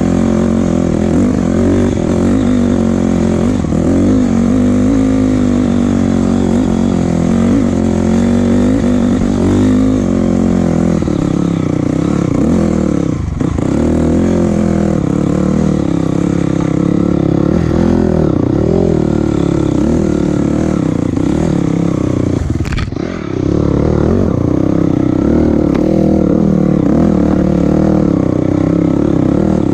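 A motor vehicle's engine running continuously under way, its pitch wavering up and down with the throttle, dropping off briefly twice.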